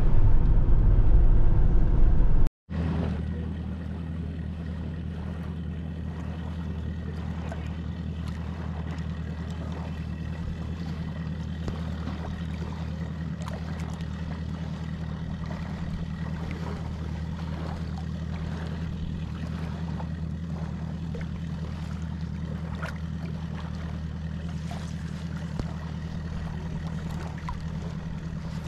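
A louder, rougher low noise cuts off abruptly about two and a half seconds in. After that, a motorboat engine runs at a steady speed.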